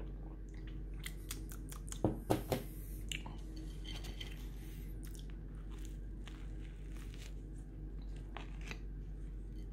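A person biting and chewing crusty bread, with a few louder crunches about two seconds in and softer chewing clicks after.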